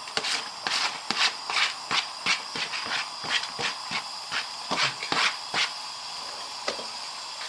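Wooden spoon tapping and scraping a plastic chopping board as the last pieces of chopped peppers, onion and mushroom are knocked off into a pot: irregular sharp clicks, a few a second, that stop about three-quarters of the way through. A steady hiss runs underneath.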